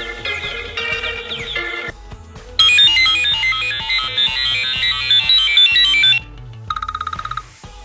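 iPhone ringtones playing one after another. A short melodic tone sequence ends about two seconds in. After a brief gap comes a louder, bright chiming melody of about three and a half seconds, then a quick rapid electronic trill near the end.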